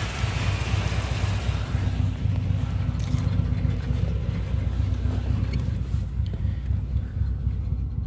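1989 Chevrolet Celebrity's 2.8-litre V6 idling with a low, uneven running: the engine is misfiring ("cutting up") at idle. The owner has not traced the cause despite new plugs, wires, coils, ignition module and injectors; he suspects the EGR valve or an air leak.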